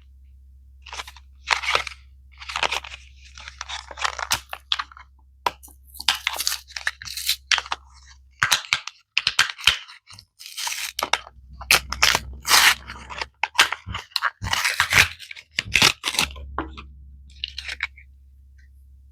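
Packaging being handled and torn open, crinkling and crunching in irregular bursts.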